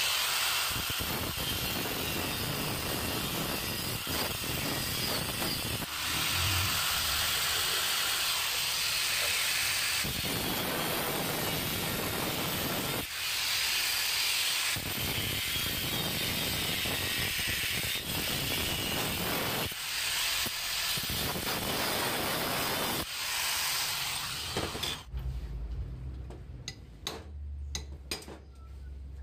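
Angle grinder with a cutting disc cutting into an aluminium engine crankcase to free a broken bolt, running hard in long stretches with brief letups. The grinder stops about 25 seconds in, and a few light clicks and knocks follow.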